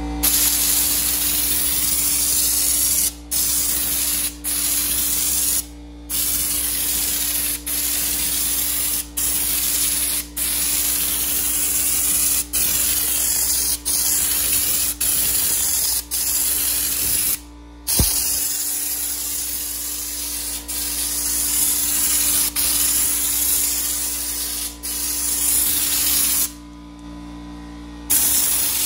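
Air-powered Raptor Liner spray gun applying bed-liner coating: a loud, steady hiss of air and spraying coating. It stops and restarts in many short bursts, with one longer pause near the end.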